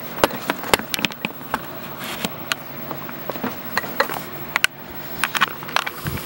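Camera handling noise: irregular clicks, taps and rubbing as the camera is gripped and moved around, over a faint steady hum.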